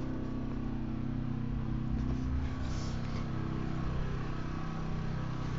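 A heavy machine's engine running steadily at a low, even pitch.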